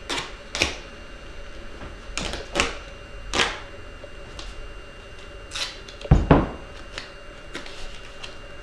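Duct tape being pulled off the roll and torn into short strips: a series of quick rasping rips, about nine in all, the loudest two close together about six seconds in.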